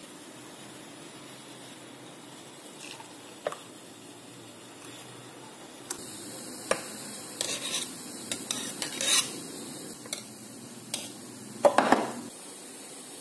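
Clinks, taps and scrapes of a stainless steel milk pitcher against a glass as frothed milk is poured into it. The knocks come in a cluster past the middle and are loudest near the end, over a steady low hum.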